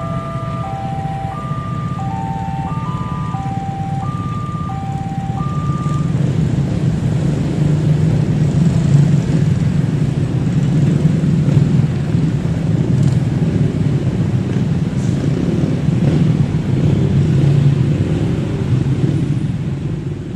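Level-crossing electronic warning siren playing a repeating stepped tune for about the first six seconds. A train then passes through the crossing with a heavy, loud rumble that builds, holds and eases off near the end.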